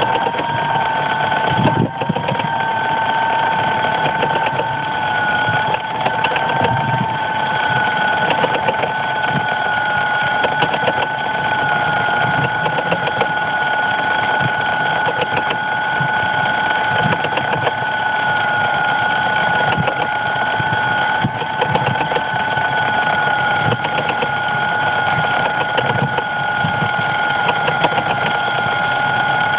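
Crashed DJI Phantom drone's electric motors giving a steady, high two-tone whine while it lies in dry stubble, with faint irregular ticking. The pitch wavers slightly in the first few seconds, then holds level.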